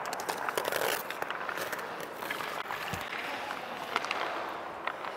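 Ice hockey rink practice ambience: a steady hiss with scattered sharp clacks of sticks and pucks and skates on the ice, including a quick rattle of clicks at the start.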